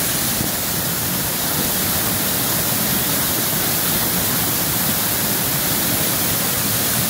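Rain-swollen waterfall and stream pouring down rock, a steady rushing hiss that holds an even level throughout.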